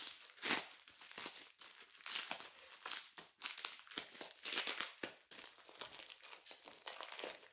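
Crinkly package wrapping being worked open slowly by hand, a dense run of irregular crackles and rustles.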